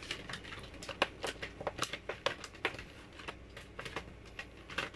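Thin plastic packaging bag crinkling as it is handled: a quick, irregular run of small crackles and clicks.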